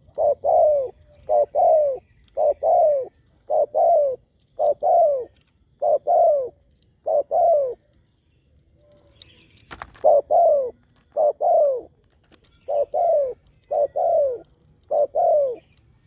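Spotted dove (tekukur) cooing over and over in quick pairs of falling notes, about one pair a second, with a pause of about two seconds in the middle. A single sharp click comes just before the cooing starts again.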